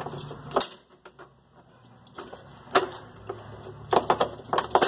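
Sharp clicks and clacks of plastic and metal parts being handled on a Brastemp washing machine's brake mechanism. There is one click about half a second in, another near three seconds, and a quick run of clicks near the end.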